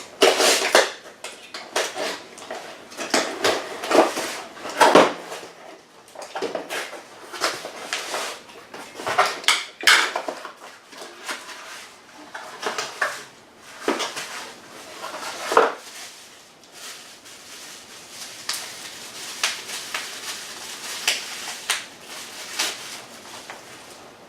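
A cardboard box and its packaging being opened and unpacked by hand: irregular knocks, rustles and scrapes as the parts of a Wixey WR700 digital fence readout kit are lifted out, with a few sharper knocks among them.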